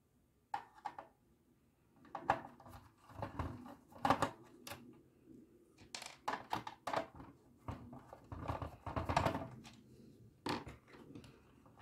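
Irregular clicks, taps and knocks of a screwdriver and small screws being worked on a radio cassette player's plastic chassis and cassette mechanism, with parts being handled.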